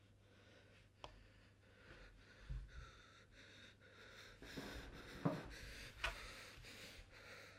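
Quiet handling noises from hands working at a table: a few soft knocks and clicks with rustling between them, the loudest knock about five seconds in, over a faint low electrical hum.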